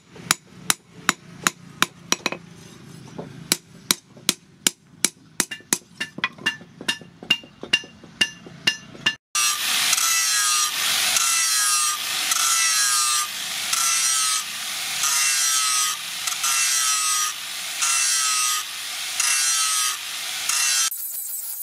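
Hand hammer striking a steel knife blade on a steel-post anvil, about two ringing blows a second. About nine seconds in, an angle grinder with a sanding disc runs along the blade in repeated strokes about a second apart, its motor pitch dipping under load on each stroke.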